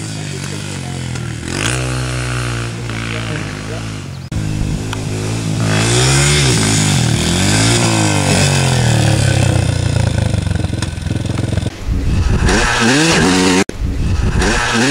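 Dirt bike engine revving up and down repeatedly as the throttle is worked, with the engine sound breaking off and changing abruptly a few times.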